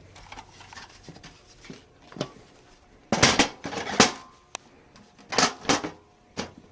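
Plastic and metal parts of a Power Macintosh 6500's case being handled and fitted back together: a run of clicks, knocks and scraping rubs, loudest about three seconds in and again around five and a half seconds in.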